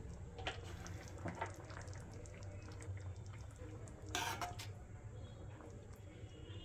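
Faint liquid sounds from a pot of hot chicken soup, with a few light utensil clicks and a short louder noise about four seconds in, over a low steady hum.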